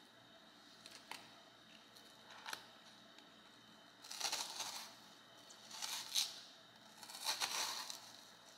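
Kitchen knife slicing through an onion on a plastic cutting board: a couple of faint taps early, then three short, crisp cuts in the second half.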